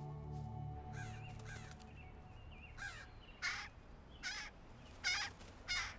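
A young American crow calling: a run of harsh caws, faint at first, then loud and coming about every three-quarters of a second through the second half. Soft background music fades out in the first two seconds.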